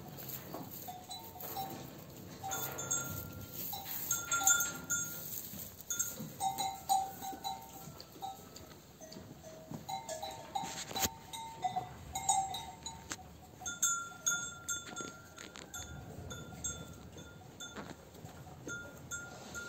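Sheep and lambs bleating on and off in a pen.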